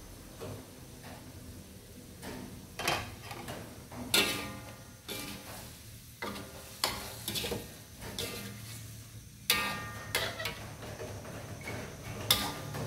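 Metal spatula scraping and knocking against a steel wok while stir-frying cauliflower, shrimp and squid, with irregular sharp strikes, several ringing briefly, over a faint sizzle.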